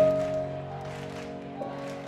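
Background music: sustained chords, most likely piano, with a soft beat, fading slightly and changing chord about a second and a half in.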